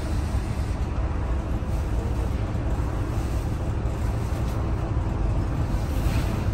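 Scania L94UB city bus's rear-mounted engine idling with a steady low rumble, heard from inside the passenger cabin.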